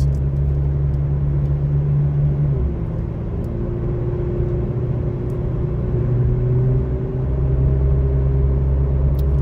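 McLaren Artura's hybrid twin-turbo V6 running at low speed, heard from inside the cabin as a steady low drone that eases about 3 s in and swells again about 7 s in, with a faint slowly rising whine.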